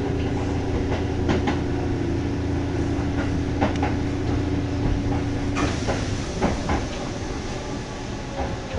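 Interior sound of a Kintetsu 1200 series electric train slowing into a station: a steady hum and rumble with a few clacks of the wheels over rail joints. About two-thirds of the way through the hum cuts off and a hiss takes over as the train rolls slowly along the platform.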